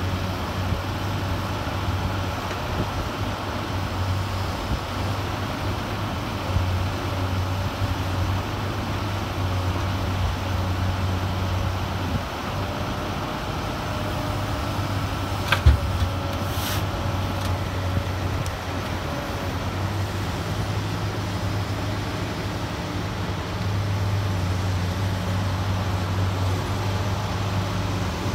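Komatsu PC200LC-8 excavator's six-cylinder diesel engine running steadily at working speed, with a single sharp knock about halfway through and the engine a little louder near the end.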